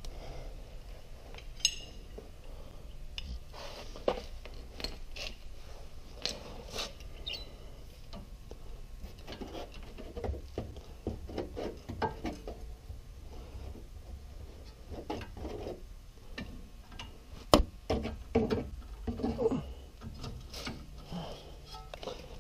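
Scattered metallic clinks and taps of a wrench and socket worked against a tight 17 mm brake caliper bolt that will not yet break loose, with a sharp knock about seventeen seconds in.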